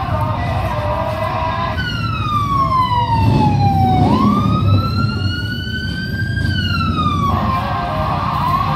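Fire truck siren giving one wail: it starts suddenly, falls in pitch, climbs back up, then cuts off abruptly. A low rumble and crowd din run underneath.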